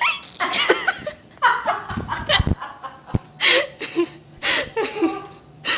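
A person hiccuping again and again, short vocal bursts about once a second, with laughing in between.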